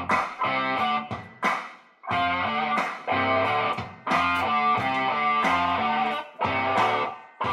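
Background music: electric guitar playing rhythmic chords in short phrases, with brief breaks between them.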